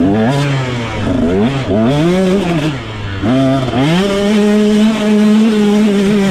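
2022 KTM 125 single-cylinder two-stroke motocross engine, heard from on the bike, revving up and down several times with the throttle. From about four seconds in it holds one steady pitch.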